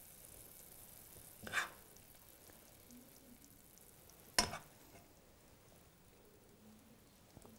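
A spoon scraping once in a pan of ema datshi being served, then a sharp metallic clink against the cookware, over a faint sizzle from the hot pan.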